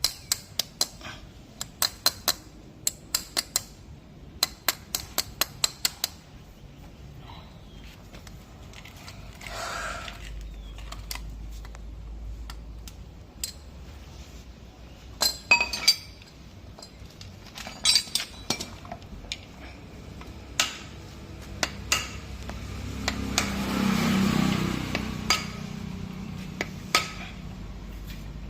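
Metal-on-metal clinks and taps from hand tools working on a car AC compressor's clutch and bearing assembly. They come in quick runs of sharp strikes in the first six seconds, then scattered, with a short rushing noise that swells and fades near the end.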